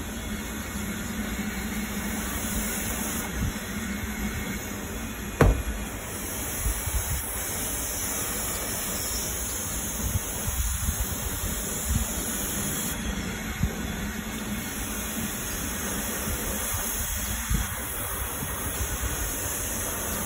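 Pressure-washer wand spraying water against a pickup truck's door jambs and lower body, a steady hiss. One sharp knock stands out about five seconds in.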